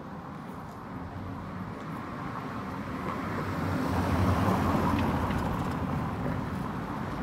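A small Fiat 500 car driving past on a cobblestone street, its engine hum and tyre rumble growing louder to a peak about four to five seconds in, then fading as it moves away.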